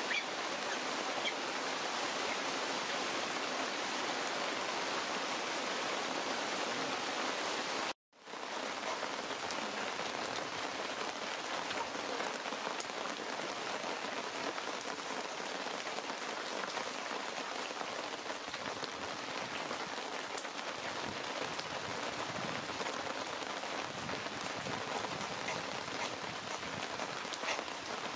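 Steady hiss of rain with faint scattered drips. It cuts out for a moment about eight seconds in.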